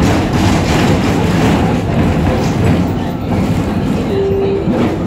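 Düwag N8C-NF articulated low-floor tram running along the track: a steady rumble of wheels on rail with occasional clicks, and a short steady tone about four seconds in.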